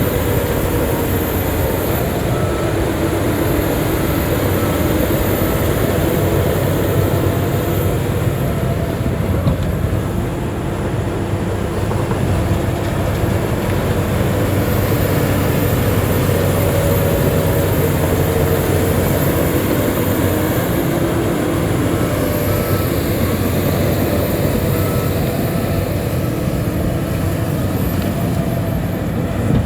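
Heavy diesel engine of a Shantui bulldozer running steadily under work, its pitch shifting slightly up and down, with a short dip in loudness about ten seconds in.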